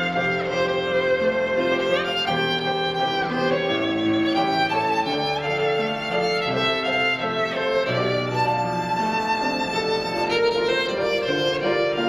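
Violin playing a lyrical melody in long held notes over piano accompaniment.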